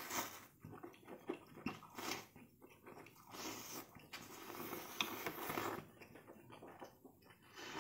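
Slurping spicy fire noodles off chopsticks and chewing them, in a string of short, wet, noisy bursts.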